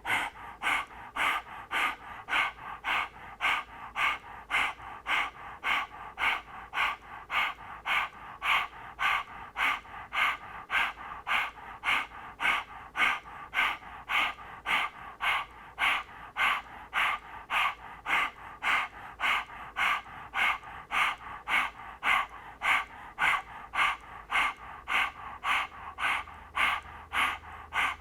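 A woman panting rhythmically through an open mouth with her tongue out: puppy dog breath, a yoga pranayama breathing exercise. The short, even breaths come about two a second without a break.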